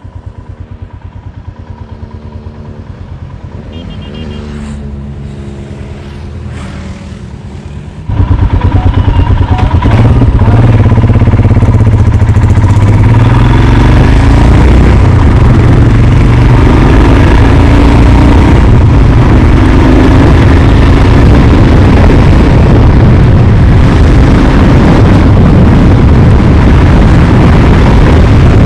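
Motorcycle engine running under way, heard from an onboard camera. About eight seconds in, a loud, steady rush of wind noise on the microphone jumps in and buries the engine note.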